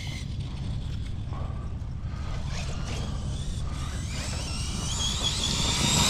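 Electric RC truck's brushless motor whining: faint at first, then louder and rising in pitch from about four seconds in as it speeds up. A steady low rumble runs underneath.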